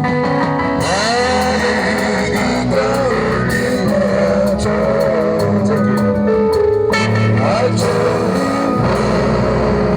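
Band music: a lead guitar line with sliding, bending notes over a steady bass guitar.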